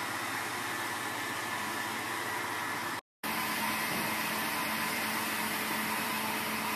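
Steady engine noise, an even hiss with a faint hum, in two stretches split by a brief silent break about three seconds in.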